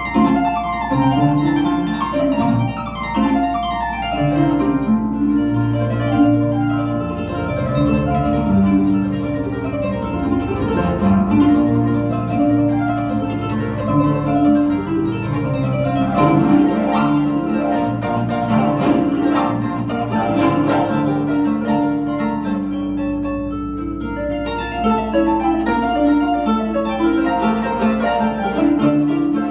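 Solo harp, plucked: a continuous melody over repeated bass notes.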